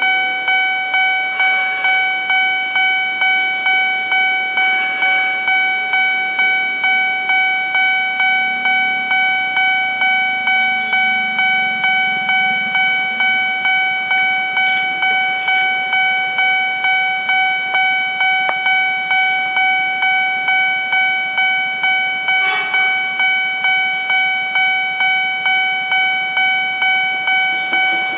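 Railroad level-crossing warning bell ringing: an electronic ding repeating in an even, rapid rhythm, signalling that a train is approaching with the barrier down.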